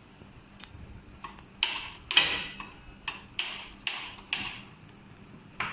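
Kitchen cookware being handled as cooking begins: a run of sharp clicks and clanks, about seven, some ringing briefly, the loudest about two seconds in.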